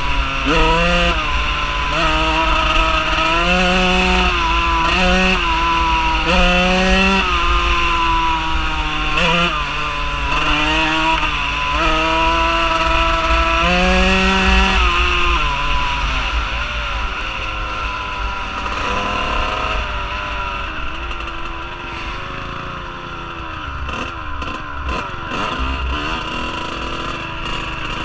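Dirt bike engine revving up and dropping back again and again as the rider accelerates and shifts through the gears, with wind rumbling on the microphone. About two-thirds of the way in it eases off to a lower, uneven drone.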